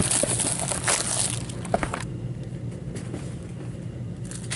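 Card-pack wrappers crinkling and rustling as packs are handled, stopping about a second and a half in, over a low steady hum.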